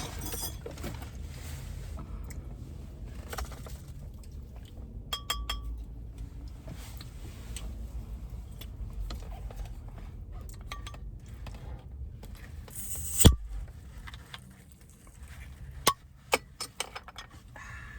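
Food containers and wrappers being handled: scattered small clinks, taps and clicks, a few of them ringing briefly, over a low steady rumble. A short loud rustle ending in a thump comes about thirteen seconds in, and a few sharp clicks follow a few seconds later.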